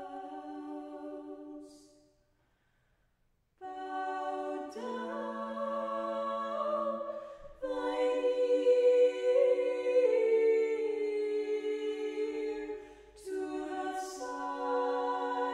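Church choir singing an Orthodox liturgical hymn a cappella in sustained chords. The chord fades out about a second and a half in, there are about two seconds of silence, then the choir comes back in with a new phrase and grows louder about halfway through.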